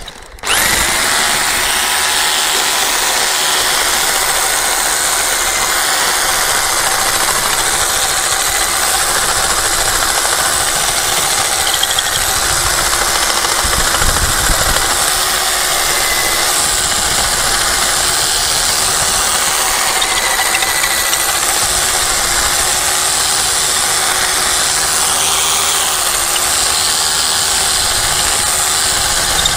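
Electric drill boring into the rendered masonry wall to widen the hole where the cable comes through. It starts suddenly about half a second in and runs steadily, its pitch wavering slightly.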